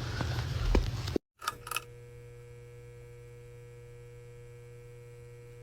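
Steady electrical hum made of several fixed tones, after about a second of room noise and light clicks that cuts off abruptly.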